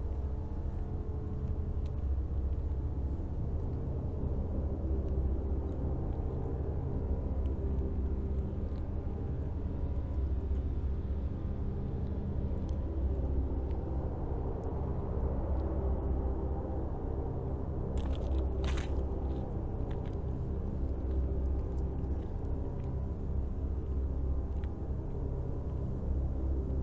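Steady low rumble, with a few sharp clicks about two-thirds of the way through.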